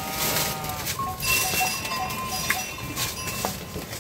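A metal bell clanking a few times at irregular intervals, its tones ringing on between strikes.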